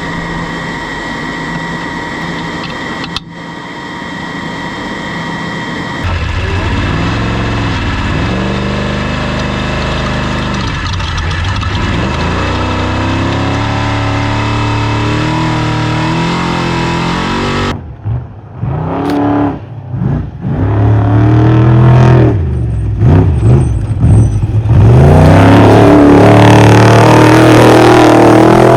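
Off-road race truck engine running hard, its pitch climbing and falling again and again as it accelerates and shifts gears. The sound changes abruptly a couple of times and is loudest over the last few seconds.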